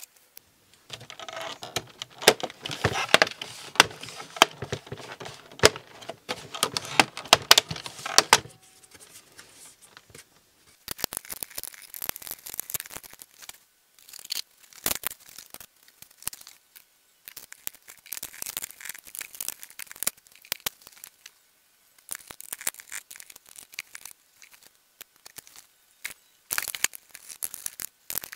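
Handling noise from taking apart a Roborock S7 MaxV robot vacuum: plastic clicks, scrapes and rattles of the housing, brush parts and a screwdriver. The noise is dense for the first eight seconds or so, then comes in irregular bursts with short pauses.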